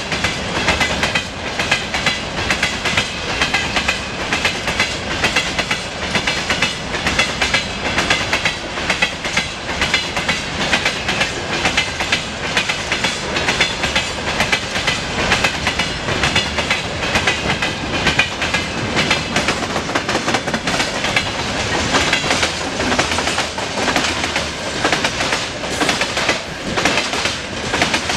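Freight wagons of a long train rolling past at speed: a continuous rumble and metallic rattle with a steady clickety-clack of many wheelsets knocking over the rail joints.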